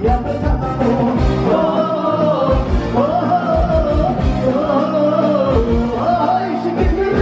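Music with a singing voice over a steady beat.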